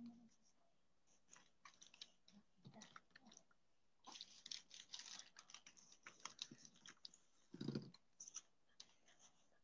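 Faint scattered clicks and rustles of things being handled close to the microphone, thickest in the middle, with one short, louder thud near the end.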